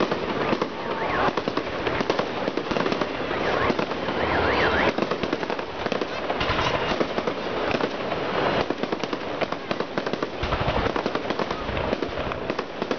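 Fireworks display: a dense, continuous barrage of rapid crackling bangs and pops, with a few deeper booms about ten seconds in.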